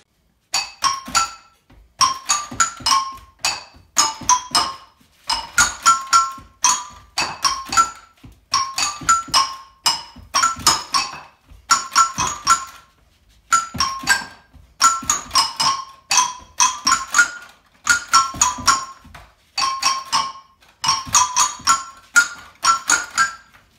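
A clocsaffon, a curved row of floor keys played by stepping on them, playing a quick tune. The struck notes come in short phrases with brief pauses between them.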